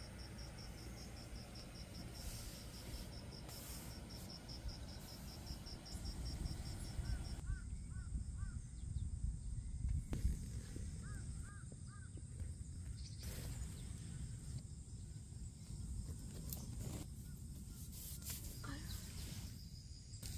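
An insect chirps in a fast, even, high-pitched pulse, several beats a second, over low rumbling outdoor noise. About seven seconds in the insect stops and a bird calls in a few short bursts of two or three notes, over the same rumble.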